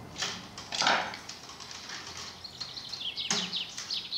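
Hand-work handling sounds: a knife cutting masking tape and willow rods rustling and knocking as they are bent on a coracle frame, a run of short scrapes and clicks, the loudest about a second in.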